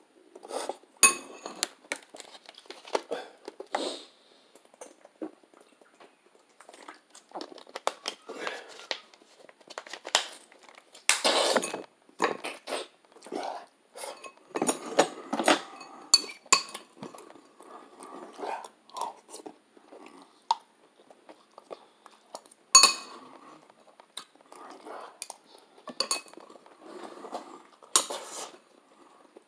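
A person eating close to the microphone: chewing and a fork clinking and scraping against a dish in irregular bursts. The sharpest clink comes about two thirds of the way through.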